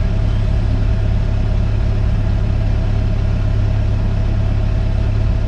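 Hitachi Zaxis 130 excavator's four-cylinder diesel engine idling steadily, heard from inside the cab: an even low hum with a steady higher tone above it, the hydraulics not working.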